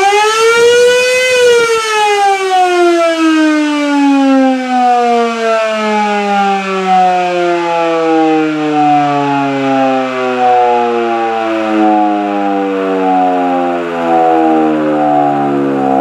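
Electromechanical siren winding up fast to its top pitch about a second in, then winding down, its pitch falling slowly and steadily.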